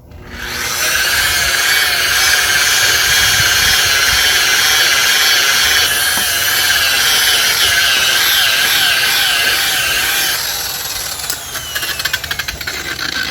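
Corded electric polisher running a pad over a plastic headlight lens, starting up about half a second in. Its motor pitch wavers as the pressure changes, and after about ten seconds the sound eases off and becomes uneven.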